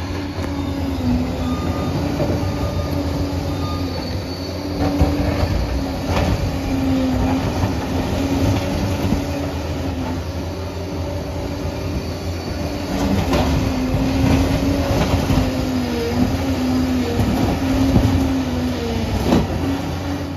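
Liebherr PR 746 crawler dozer working: its diesel engine runs steadily under a wavering whine, with clanking and squealing from the steel tracks and several sharp knocks.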